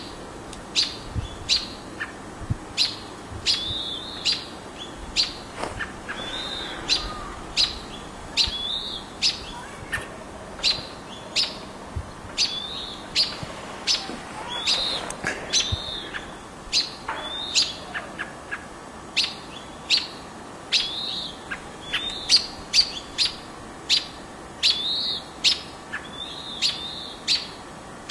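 Small birds giving short, sharp chip-like alarm calls over and over, about one a second and sometimes two in quick succession: mobbing calls from birds trying to drive a perched red-tailed hawk away from their nest.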